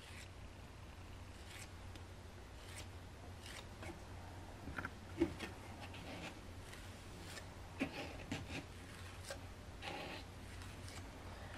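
Faint, scattered scraping and light ticks of a metal rib tool smoothing the surface of a clay pinch pot, over a low steady hum.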